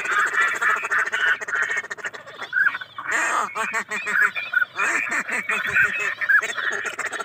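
A chorus of ducks quacking and calling, many short calls overlapping without a break.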